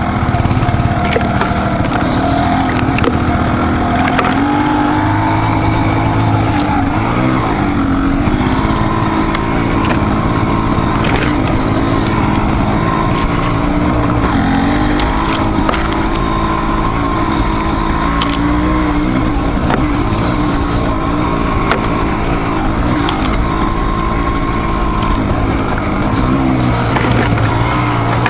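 Dual-sport motorcycle engine running under load on a trail, its pitch rising and falling with the throttle, with a few sharp clicks over it.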